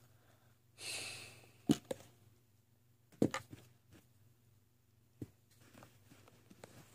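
Quiet handling noise: a short breathy hiss about a second in, then a few light clicks and knocks.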